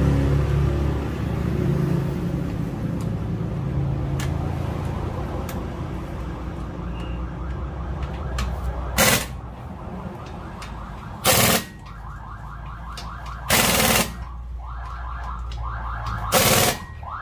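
Pneumatic impact wrench running nuts onto a wheel spacer on a pickup's hub. It fires four short hammering bursts about two seconds apart in the second half, with a lighter rapid rattle between them.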